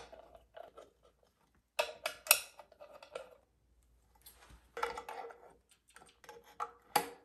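Surge arrestor housing cover being fitted and its screws fastened with a hand tool: short bursts of clicks, scrapes and light rattles, with a sharper click near the end.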